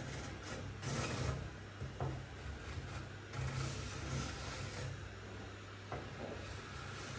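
Hand tool working wood: a few rasping strokes, one short and one longer, over a steady low hum.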